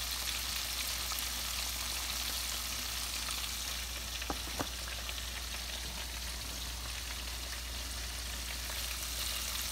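Battered flounder pieces deep-frying in hot oil in a pot: a steady sizzle, with two light clicks of the metal tongs about halfway through.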